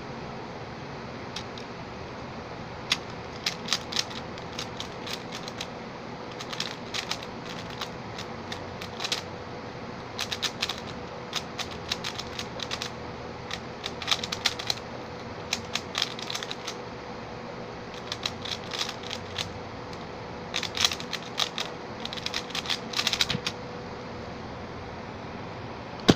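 Stickerless 3x3 speedcube being turned fast, a dry plastic clicking and clacking that comes in bursts of quick moves separated by brief pauses. Near the end a single sharp knock as a hand hits the keyboard to stop the solve timer.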